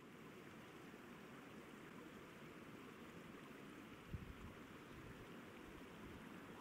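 Faint, steady outdoor ambience: an even rushing hiss, with one brief low thump about four seconds in.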